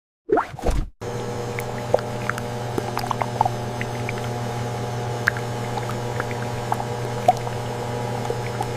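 Food-processing machinery running with a steady multi-tone hum, with scattered small clicks and ticks. A brief sliding whoosh comes just before the hum starts.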